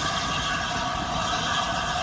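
Train of the Flying Scotsman steam locomotive making a continuous, even mechanical noise with no distinct beats.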